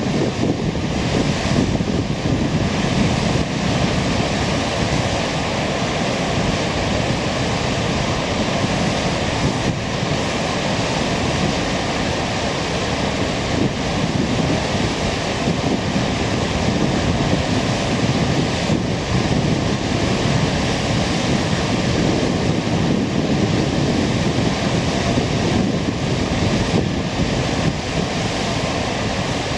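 Steady rushing wind noise on the microphone, dense and low, with no distinct events.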